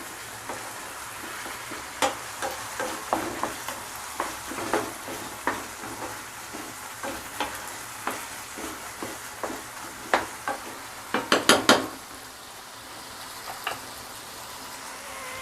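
Prawn roast masala frying in coconut oil in a pan, sizzling steadily as it is stirred, with irregular clinks of the utensil against the pan and a quick run of taps about eleven seconds in. The oil is separating from the masala, a sign the roast is nearly done.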